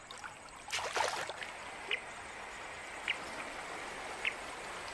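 River water running steadily, with a short louder rush of sound about a second in. A brief high chirp repeats about once a second over it.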